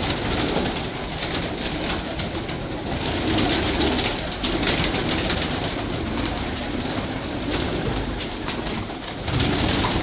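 Domestic pigeons cooing in a loft, many birds overlapping in a continuous murmur of low coos.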